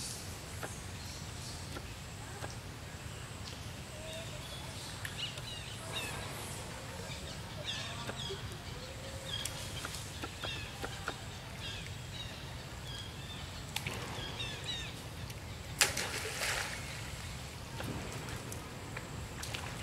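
Outdoor pond ambience: a steady low rumble with many short high bird chirps through the middle, and one sharp water splash about sixteen seconds in from macaques swimming.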